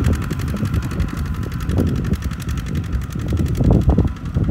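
Tractor diesel engines running under load as a four-wheel tractor tows a stuck Kubota RT140 single-cylinder walking tractor and its rice trailer through deep mud, with a fast, even engine beat.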